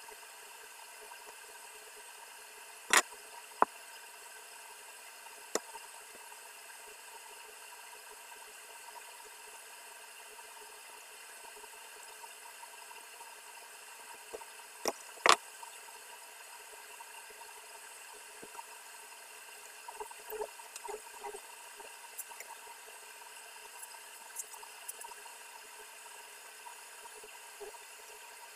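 Sharp clicks and knocks from hand work on an electrical socket, the wires being fixed into its terminals with a screwdriver, over a steady hiss. The loudest clicks come about three seconds in and again about fifteen seconds in, with lighter scattered taps around twenty to twenty-five seconds.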